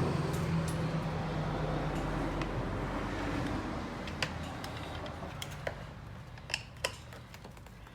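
A steady low hum that slowly fades, with a few light clicks and taps of small plastic and metal door-handle parts being handled, most of them in the second half.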